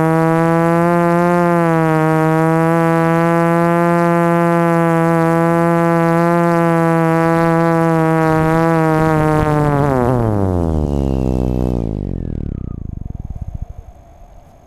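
Flip FPV quadcopter's electric motors and propellers buzzing at a steady pitch while hovering, heard from on board. About ten seconds in, the pitch falls away over a few seconds as the craft settles on the grass and the motors spool down.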